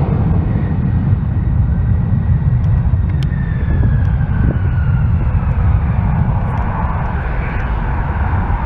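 Twin-engine jet airliner rolling down the runway under power: a loud, steady, deep rumble, with a thin whine that falls in pitch a few seconds in as the jet moves away.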